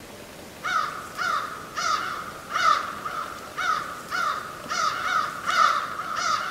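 Crows cawing: a rapid series of harsh caws, about two a second.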